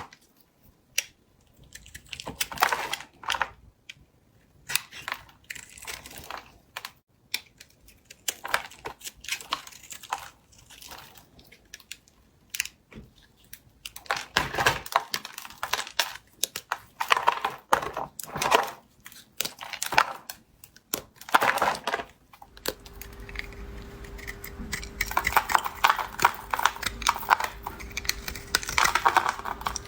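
A knife cutting and scraping through soap, a series of separate strokes with crumbling in between. About two-thirds of the way through, a steady faint hum starts underneath the cutting.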